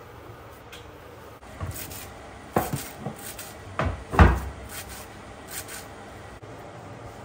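A handful of irregular knocks and thumps while spiced mashed-potato filling is mixed in a bowl, the loudest about four seconds in.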